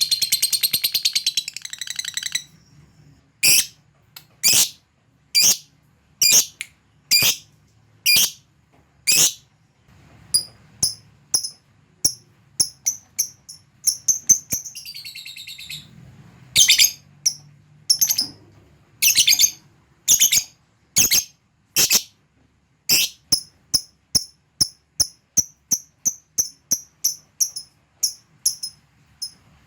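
Lovebird calling: a fast, dense chatter for the first two seconds, then a series of sharp, high chirps, at first about one a second and later quicker, with a brief falling trill midway. It ends in a steady run of short ticking chirps, about two a second, the 'ngetik' call of a lovebird challenging a rival.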